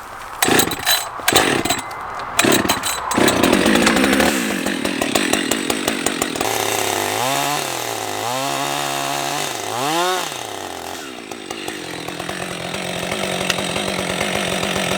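Two-stroke chainsaw starting with a few sharp pulls in the first three seconds, then running, revved up and down three times, then held at a steady speed as it trims a maple log.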